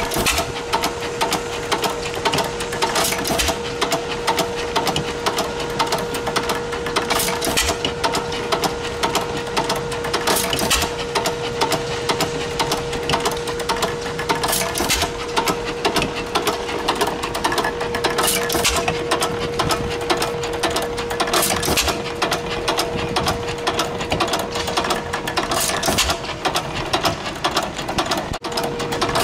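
Antique single-cylinder flywheel gas engine running, with a fast steady clatter of valve gear and belt-driven machinery and a steady hum underneath. A louder bang comes every three to four seconds as it fires, the engine coasting on its flywheels between firings in the manner of a hit-and-miss engine.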